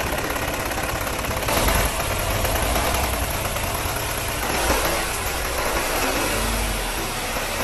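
Isuzu 6UZ1 straight-six turbo diesel idling, heard close up in the open engine bay, with a couple of brief louder swells.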